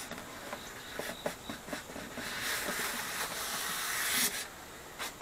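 Polystyrene foam packing being pulled up out of a cardboard box: a few light knocks, then about two seconds of foam scraping and rustling against the cardboard that stops abruptly.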